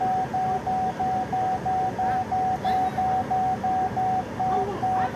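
2023 MG One's rear parking-sensor warning beeping steadily, one high tone about three times a second, a sign the newly fitted rear sensors are detecting an obstacle.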